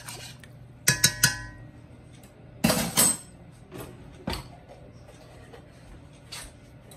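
Metal spoon clinking against a stainless steel stockpot: three quick ringing taps about a second in, then a louder clatter a couple of seconds later, followed by a few light knocks.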